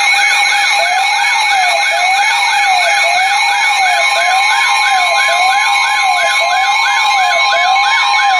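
Several electronic sirens sounding together: a fast yelp sweeping up and down about two to three times a second over a slower wail rising and falling about once a second, with steady whistling tones above. One more steady tone joins about halfway through.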